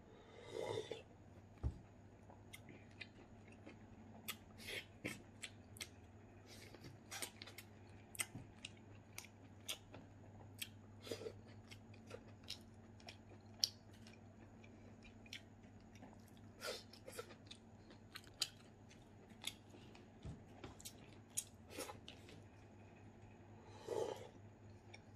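A person eating close to the microphone: chewing with wet mouth noises and many short lip smacks and clicks. About a second in and again near the end come longer sips from a coconut-shell bowl.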